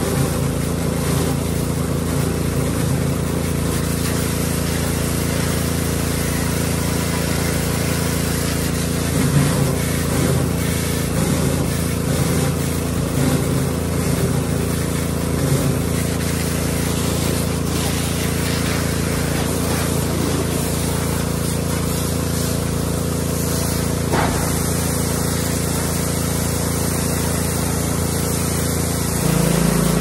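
A small engine-driven water pump runs steadily while water hisses out of a hose spray wand against the metal of a combine harvester.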